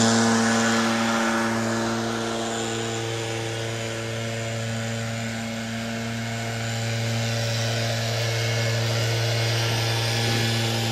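Gas backpack leaf blower running steadily, its engine hum constant throughout. A rush of blown air fades away over the first few seconds.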